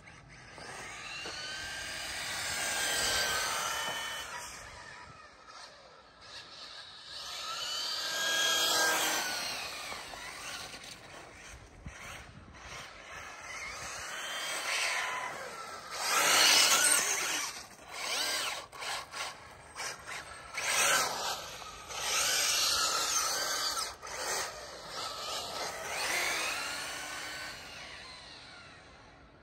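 Associated 1/8-scale electric buggy with a Spektrum Firma 2050 kV brushless motor and 150 A ESC driving past several times: the motor and drivetrain whine swells as it approaches and drops in pitch as it moves away with each pass.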